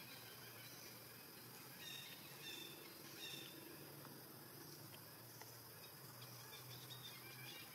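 Faint outdoor ambience, close to silence: a low steady hum with a few short, faint high chirps about two to three seconds in.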